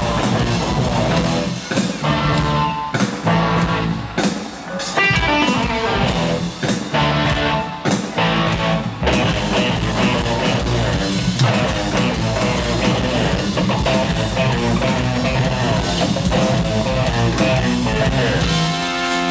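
Live rock band playing: electric guitars over a driving drum kit beat, in a hard-rock style. Near the end the drums stop and a guitar chord is left ringing.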